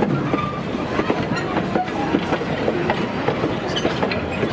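Open wooden excursion cars rolling past close by. Their wheels are rumbling and clicking over the track, with a few short squeaks.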